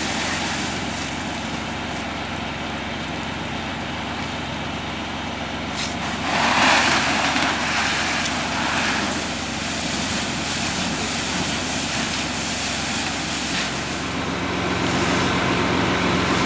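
A fire engine's engine running steadily to drive the pump, under the hiss of a hose stream spraying water onto a burning car. About six seconds in, the hiss swells louder for a few seconds, then eases.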